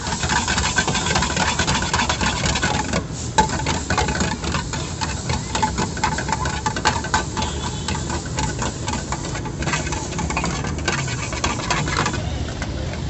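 Metal spatula scraping and clattering rapidly against a metal frying pan as vegetables are stir-fried, over a steady low background noise. The clatter stops about twelve seconds in.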